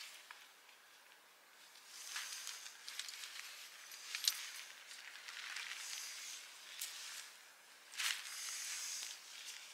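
Lightweight tent fabric rustling in several bursts as a tarp tent is handled and taken down, with a few sharp clicks among the rustles.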